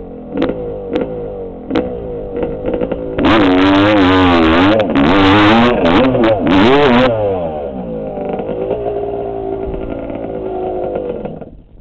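Dirt bike engine revving hard under load while climbing a steep hill, its pitch swinging up and down, with a few sharp knocks in the first couple of seconds. It then runs lower and steadier before cutting off suddenly just before the end.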